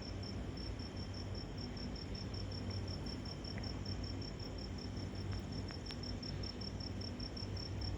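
Crickets chirping in a steady, even pulse of short high notes, about four or five a second, over a low steady hum.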